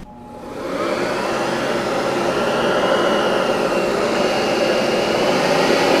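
Oreck upright vacuum cleaner switched on: its motor spins up over about a second, then runs steadily.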